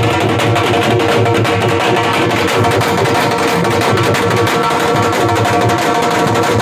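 Several dhols beaten with sticks in a fast, dense, loud rhythm, with a steady held note sounding underneath the drumming.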